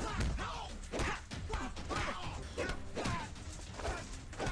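Movie fight sound effects: a rapid run of punch and kick impact hits, about two to three a second, with short cries between them, over background music.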